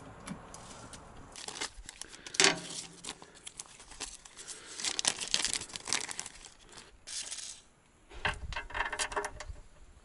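Small plastic zip-top parts bag crinkling and rustling as it is handled and opened, in bunches of crackle with scattered sharp clicks.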